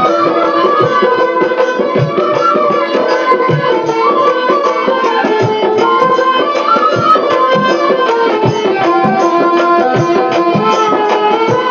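Instrumental interlude of Bengali folk kissa pala music: a melody instrument playing a wandering tune over repeated hand-drum strokes.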